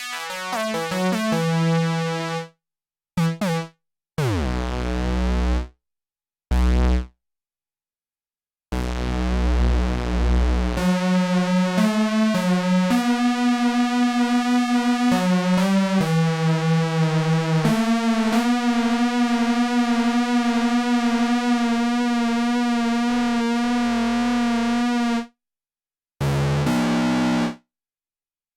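Sequential Prophet 6 analog polyphonic synthesizer played dry, with no effects. Short notes cut off into abrupt dead silences and deep bass notes come first; then a long stretch of held notes changing pitch a few times, their upper tones wavering, ends suddenly near the end.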